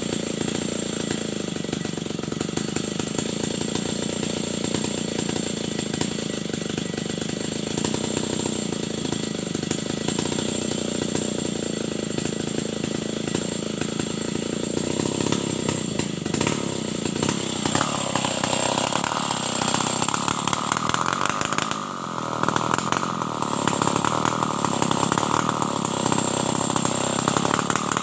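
Stihl 070 two-stroke chainsaw running steadily. About two-thirds of the way in its sound changes and grows slightly louder, with a brief dip soon after.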